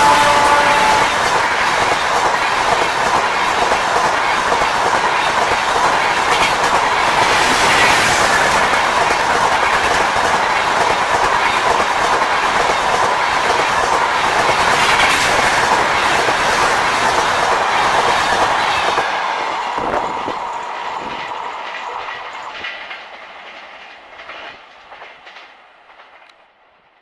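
An express train's coaches rushing past at speed, wheels clattering over the rail joints, loud until about 19 s in and then fading away as the train recedes. At the start, the tail of the WAP-5 electric locomotive's horn drops in pitch and stops about a second in.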